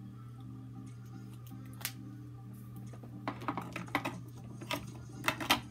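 Faint background music over a steady low hum, then from about three seconds in a quick flurry of small clicks and taps as plastic makeup containers are picked through and handled.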